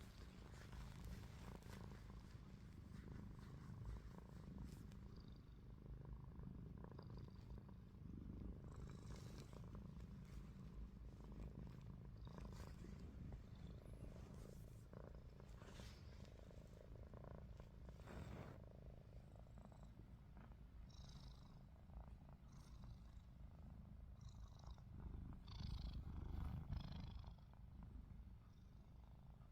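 A cat purring: a faint, steady low rumble that the owner calls snoring.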